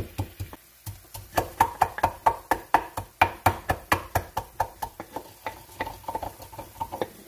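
Garlic cloves pounded with a pestle in a mortar: quick, even knocks about four a second, each with a short ring, with a brief pause about half a second in and lighter strikes near the end.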